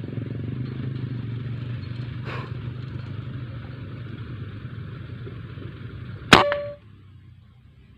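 A single sharp air-rifle shot about six seconds in, followed by a brief metallic ring. Before it, a steady low vehicle-engine rumble fades out.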